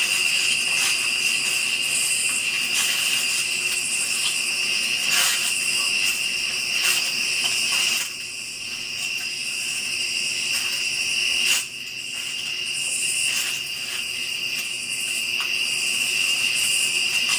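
Crickets and other insects chirping in a steady, high-pitched chorus. There are a few faint clicks, and the chorus drops abruptly in loudness twice, around the middle.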